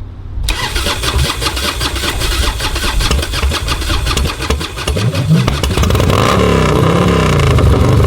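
Harley-Davidson V-twin motorcycle engine starting and running, with the throttle blipped so the revs rise and fall a few times in the second half.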